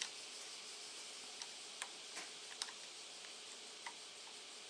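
Faint, scattered small clicks of metal parts and fingers working on an RC car's rear shock absorber as a tight nut is worked off, about six clicks at uneven intervals over a steady high hiss.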